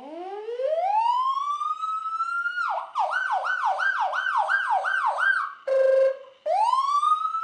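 Ambulance siren sound effect. It starts with a long rising wail, switches near the middle to a fast up-and-down yelp of about three cycles a second, breaks for a short steady horn-like blast, then rises into a wail again.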